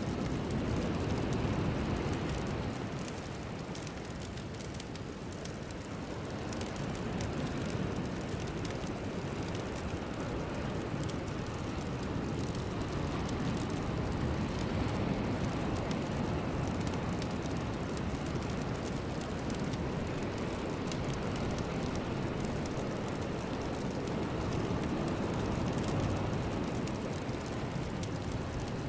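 Synthesized ambient noise for a meditation track: a low, even rushing sound with no clear tones or beat. It eases off a few seconds in and then swells back up.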